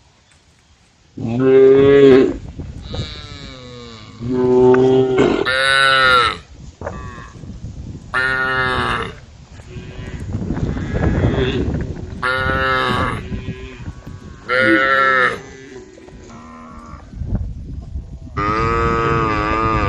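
Cows mooing repeatedly: about seven long, loud calls a few seconds apart, some lower and some higher-pitched.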